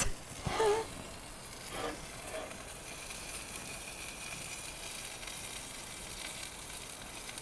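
A steak sizzling steadily as it sears in a very hot Lodge cast iron pan. In the first second there is a brief knock and a short vocal sound.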